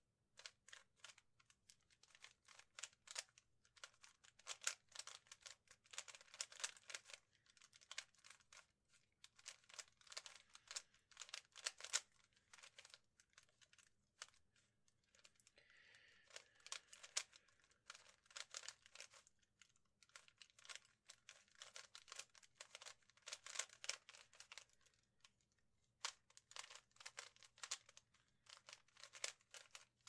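Rubik's 3x3 speed cube being turned rapidly during a timed solve: fast runs of plastic clicks and clacks as the layers snap round, broken by short pauses while the solver looks at the cube.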